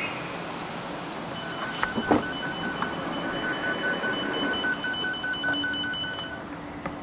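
Stationary commuter train's door warning signal: rapid, evenly pulsed electronic beeping in two pitches that starts about a second in, runs for about five seconds and stops shortly before the end. A couple of knocks sound about two seconds in.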